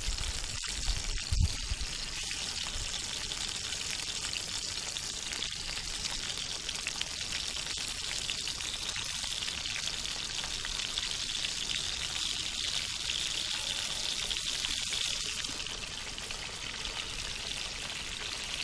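Fish frying over a wood fire: a steady sizzling hiss with a fine crackle throughout. A few low knocks in the first couple of seconds.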